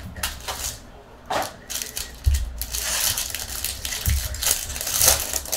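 Foil wrapper of a 2019 Topps Tier One baseball card pack crinkling and tearing as it is handled and opened, with a couple of low thumps along the way.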